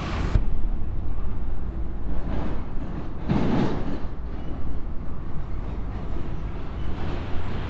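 Roadside traffic noise: a steady low rumble, with one vehicle passing close by about three and a half seconds in.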